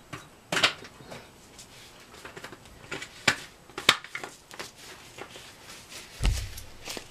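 Kitchen handling sounds: a few sharp clicks and knocks of utensils and containers being moved about, with a heavier, low thump about six seconds in.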